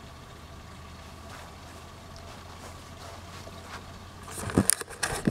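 A faint, steady low hum, then about four seconds in a burst of loud rustling and sharp knocks from the camera being picked up and moved.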